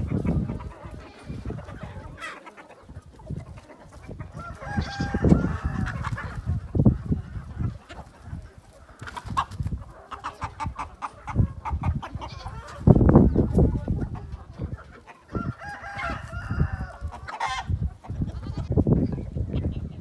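A large free-range flock of chickens clucking, with a rooster crowing twice, about five seconds in and again near the end. Low rumbling gusts of noise run under the birds and are loudest about halfway through.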